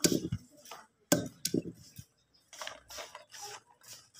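Wooden pestle pounding garlic in a stone mortar: three sharp thuds in the first second and a half, then quieter, scattered crushing strokes.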